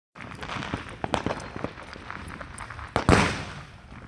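Fireworks going off: scattered sharp crackling pops, then a loud bang about three seconds in that rings and echoes away.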